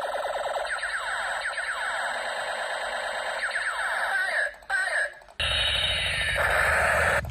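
Battery-powered Spiderman propeller light-up toy gun sounding its electronic effect: a rapid, unbroken run of falling siren-like tones. About five seconds in it cuts to the steady whir and low hum of its spinning propeller.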